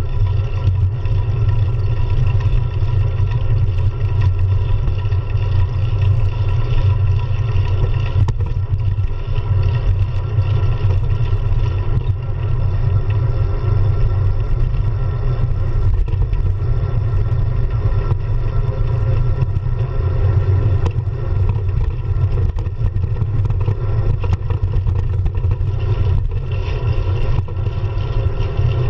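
Steady low rumble of wind buffeting a handlebar-mounted GoPro's microphone while riding a road bike, with tyre and passing-car noise underneath.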